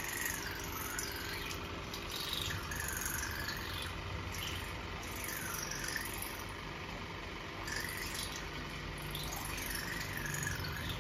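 Handheld cordless water flosser running with its jet in the mouth: a steady pump buzz and water spray, with a thin tone that wavers up and down as the jet moves around the teeth.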